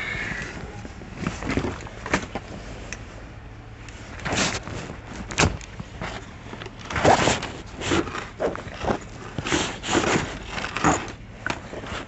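Tools, cases and bags being handled and shifted about in an SUV's cargo area: irregular knocks, clunks and rustling, most frequent in the second half.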